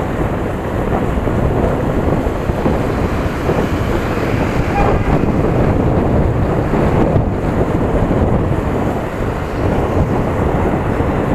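Steady wind buffeting on the microphone of a motorcycle riding at about 35 km/h, a heavy rumbling noise that covers any engine sound.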